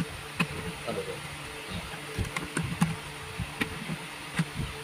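Pliers clicking and tapping on small metal parts at the carbon-brush end of a jacuzzi blower motor, in irregular light ticks over a steady low hum.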